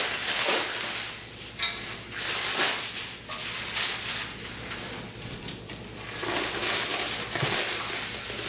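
Packing material and cardboard rustling and crinkling in uneven swells as a heavy bell housing is worked out of its shipping box.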